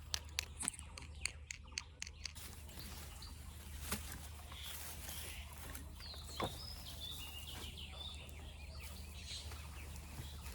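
Birds chirping over a steady outdoor hiss. Short calls come from about four to nine seconds in. A quick run of sharp clicks or taps sounds in the first two seconds.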